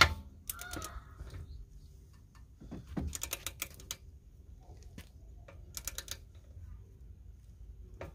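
A sharp metal clank as a socket on a long-handled wrench goes onto a car's lug nut, then several short runs of light clicking from the wrench's ratchet head as it is worked on the nut.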